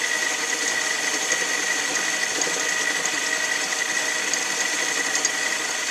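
Small metal lathe running steadily, with a constant high whine from its motor and drive, while the tool takes a light back cut along a workpiece that sticks far out of the chuck.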